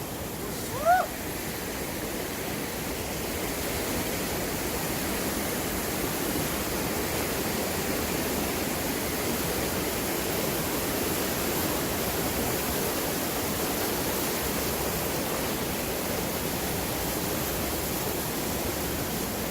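Steady rushing of flowing water, an even noise that holds constant throughout.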